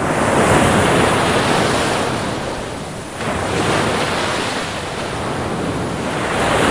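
Sea waves breaking and washing on a shore: a steady rush of surf that swells and ebbs, surging again about three seconds in and once more near the end.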